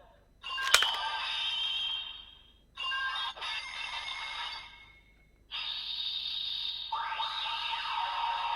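A sharp click about a second in, then electronic sound effects and music from a DX Ultraman Decker toy reading an Ultraman Ace Ultra Dimension card, in three stretches with short gaps between them.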